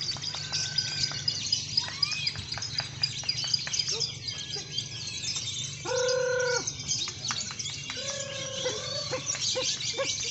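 Many caged songbirds singing and chirping at once in a dense mix of rapid chirps and trills over a low steady hum. About six seconds in there is a louder held tone lasting under a second, and shorter held tones follow a couple of seconds later.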